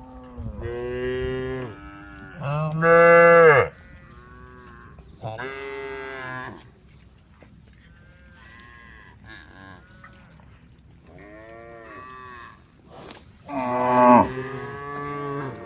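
A herd of cows mooing: a string of long calls from several animals, the loudest about three seconds in and again near the end, with fainter calls in between.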